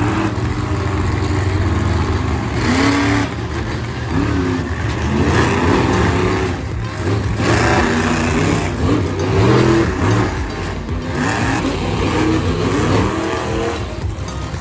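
Monster truck engines revving again and again, each rev rising in pitch, as several trucks drive around a dirt arena.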